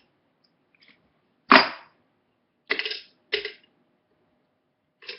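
Sharp knocks and clatter from handling a toy gumball machine with its top off while candy goes in. One loud knock comes about one and a half seconds in, then a few smaller clattering knocks, and one more near the end.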